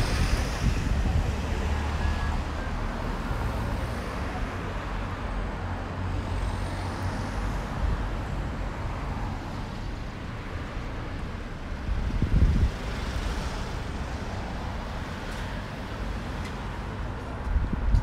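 Street traffic: motor vehicles running and passing along the road, a steady low rumble that swells briefly about twelve seconds in and again near the end.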